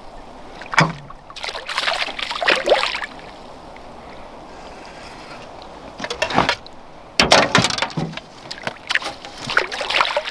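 Hooked crappie thrashing and splashing at the water's surface beside a boat, in irregular bursts, then a landing net dipped into the water with a splash near the end.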